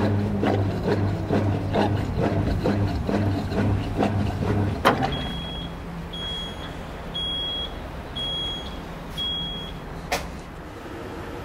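Washing machine drum turning with a steady motor hum and rhythmic thuds about two and a half a second, which stop with a sharp click. Five evenly spaced beeps at one pitch follow, about one a second, the machine's cycle-end signal, then a second click.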